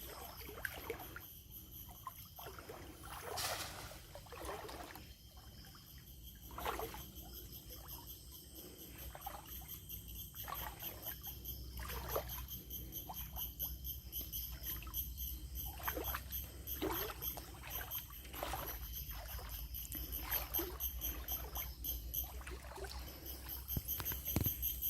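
Steady high-pitched ringing of a tropical insect chorus over water, with scattered splashes and trickling.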